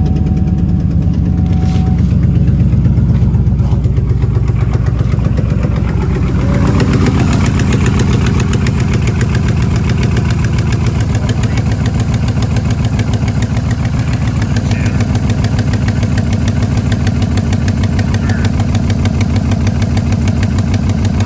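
Trailblazer SS's 6.0 L LS2 V8 with Kooks headers idling steadily just after starting, in a regular low pulsing beat. It is being run to check whether the patched header leak at the missing rear stud is sealed.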